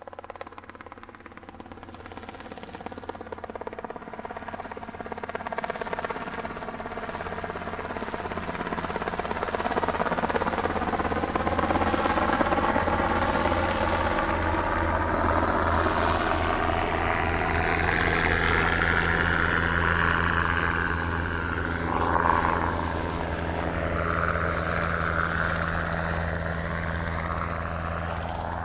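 Helicopter rotor beating rapidly over the engine's steady drone. It grows steadily louder over the first dozen seconds, then holds, with a brief louder swell about 22 seconds in.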